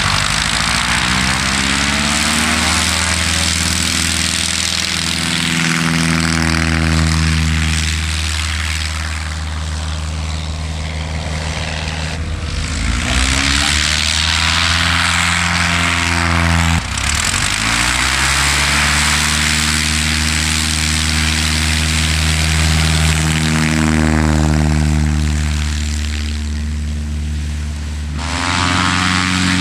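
Piper Super Cub light aircraft's piston engine and propeller running loudly, its pitch rising and falling several times, with a sudden break about seventeen seconds in.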